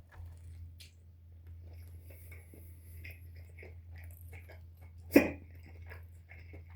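Faint chewing and mouth noises over a low steady hum, broken about five seconds in by one short, sharp hiccup, the loudest sound here, brought on by eating very spicy food.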